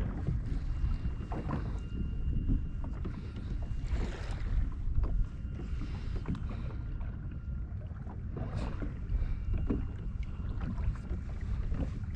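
Wind buffeting the microphone on a fishing kayak, with water moving against the hull and scattered light knocks and splashes.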